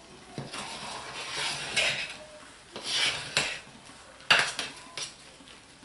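A utensil stirring thick hot-process soap batter, thickened with oatmeal, in a slow cooker crock: irregular scraping strokes against the crock, with a sharp knock a little after four seconds.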